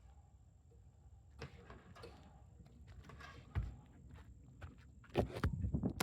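Drain-cleaning cable machine being reversed and its cable handled: scattered clunks and knocks over a low steady rumble, with a heavier thump a little past halfway and a cluster of thumps near the end.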